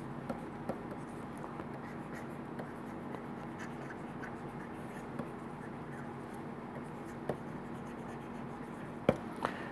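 Faint taps and scratches of a stylus writing on a pen tablet, over a steady low hum, with a sharper click near the end.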